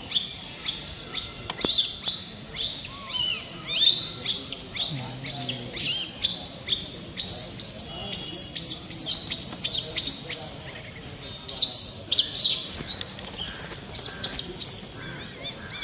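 Small birds chirping, many quick high calls one after another, busiest in the second half.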